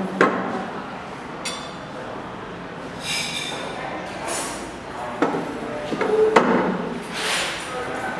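Ceramic plates and metal cutlery being set down on a cloth-covered table: a handful of separate sharp clinks and knocks, some with a brief ring, the loudest about six seconds in.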